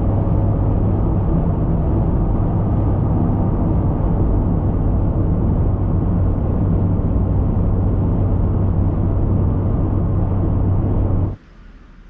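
Car driving, with steady road and engine noise and a low hum. It cuts off abruptly near the end.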